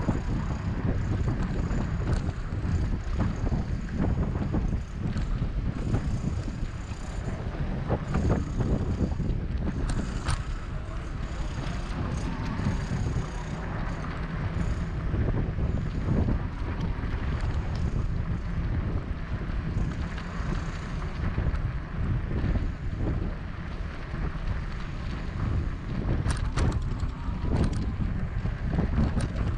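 Wind buffeting the microphone of a camera on a moving bicycle: a steady low rumble, with a few faint knocks and clicks from the ride.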